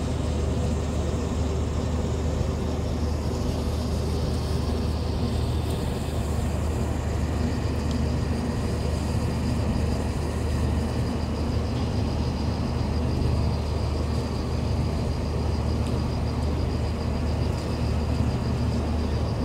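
A boat engine running with a steady low drone, unchanging in level. A faint thin high whine joins about eight seconds in.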